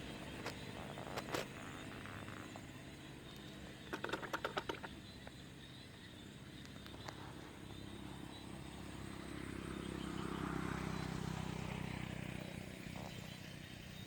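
An engine hums steadily, growing louder and then fading again in the second half. About four seconds in there is a quick run of about eight clicks.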